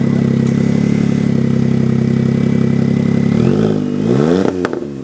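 Smart car's three-cylinder engine running through a straight-piped exhaust with no muffler: a steady idle, then revved up and back down a couple of times near the end before the sound falls away.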